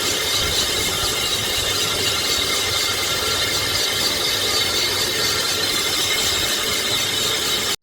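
Metalworking lathe running steadily while machining a motorcycle brake drum, a continuous high hissing cutting noise.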